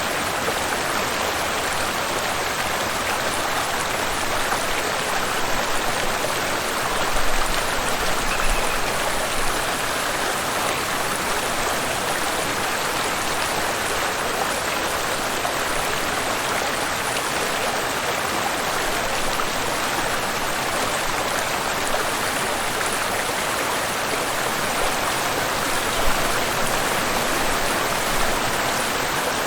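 Waterfall and flowing river: a steady, dense rush of falling and running water, with a few brief low surges.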